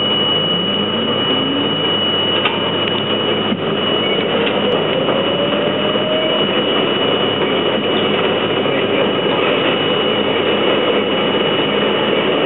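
R32 subway train accelerating out of a station into the tunnel: the traction motor whine rises steadily in pitch over the first six seconds, over the constant noise of steel wheels on the rails.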